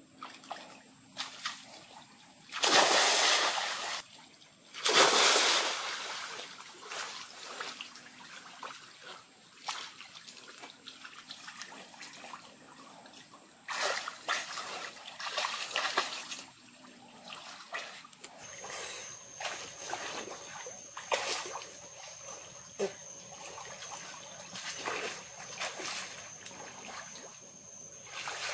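Two big splashes about two seconds apart as two people jump into a pool, followed by smaller splashing and sloshing as they swim and wade. A steady high-pitched insect drone runs underneath.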